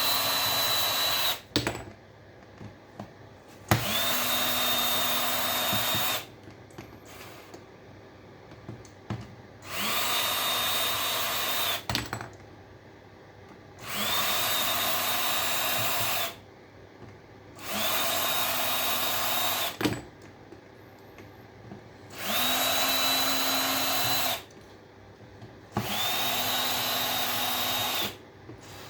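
Power drill-driver backing out screws in repeated runs of about two seconds, seven in all. Each run starts with a motor whine that rises and then holds steady, and there are small clicks of handling between runs.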